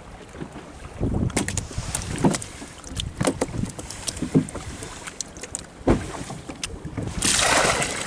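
Scattered knocks and thumps as a caught golden trevally is unhooked and laid on a boat's deck, over wind rumbling on the microphone. Near the end comes a loud rush of noise lasting about a second.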